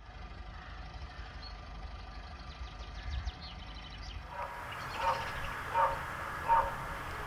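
Outdoor country ambience: a vehicle engine running steadily at a distance, with small birds chirping. About four seconds in the sound cuts to a different outdoor scene, where an animal call sounds three times at even intervals.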